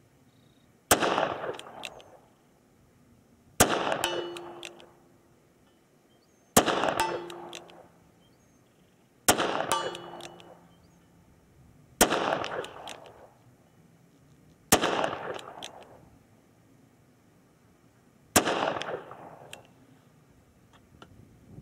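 Seven slow shots from a Smith & Wesson Performance Center 686 Plus .357 Magnum revolver, one full cylinder, about one every three seconds, each trailing off in a long echo. Several shots are followed by the faint ring of the steel silhouette target being hit.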